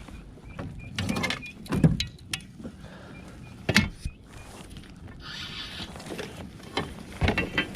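Fishing reel working during a fight with a hooked bass: a run of short mechanical ticks and a buzz, with several sharp knocks along the way.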